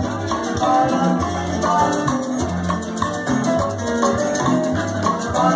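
Cuban timba (salsa) music playing loud over a dance-hall sound system, a repeating piano figure over the bass.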